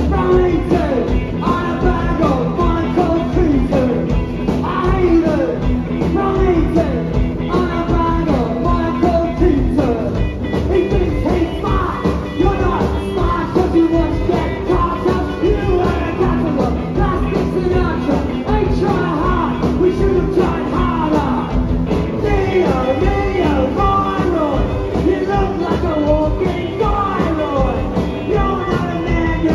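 Rock band playing live: electric guitars, bass guitar and drums, with a man singing lead.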